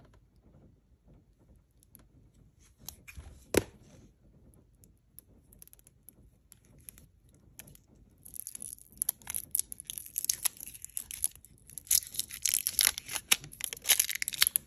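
Clear plastic wrapper crinkling and tearing as it is peeled off a Sennelier oil stick, starting about eight seconds in and continuing densely. Before that, a few light clicks and one sharp click about three and a half seconds in.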